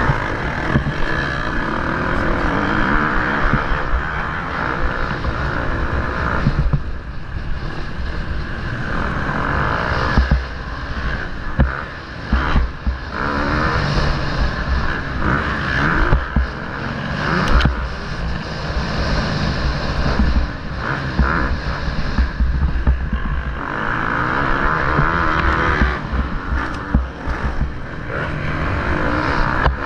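Motocross bike engine heard from a camera mounted on the bike, running hard with the throttle opening and closing and brief drops in level several times. Sharp knocks and rattles come through the bike.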